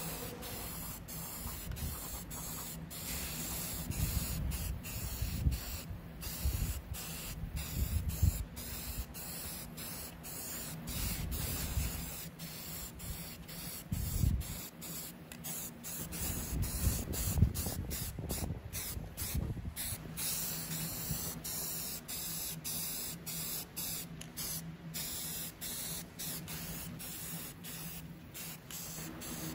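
Aerosol spray paint can hissing in many short bursts with brief gaps between them, with low rumbles underneath now and then.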